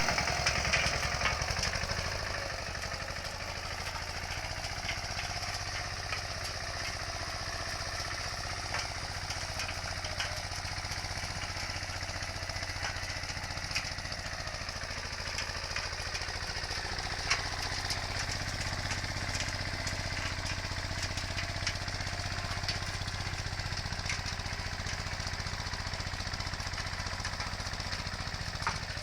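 Engine of an old Agria walking tractor running steadily while ploughing. It is a little louder for the first two seconds, with a few light clicks and knocks through it.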